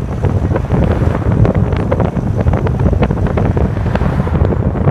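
Wind buffeting the microphone of a phone held at the window of a moving car, a steady low rumble with crackles, over the car's road noise.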